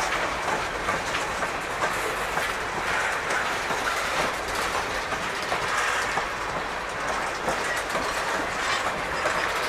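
Freight train tank cars rolling past, their steel wheels rumbling steadily and clicking over the rail joints many times.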